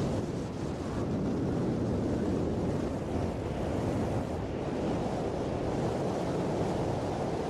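Steady wind rushing over the microphone of a camera carried by a skier moving downhill, a dense noise heaviest in the low end.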